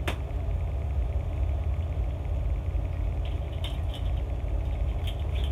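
Steady low hum, with a sharp click right at the start and a few faint clicks later on.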